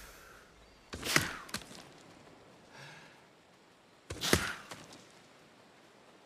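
Blowgun fired twice, about three seconds apart: each shot is a sharp puff of breath through the tube with a click as the dart leaves.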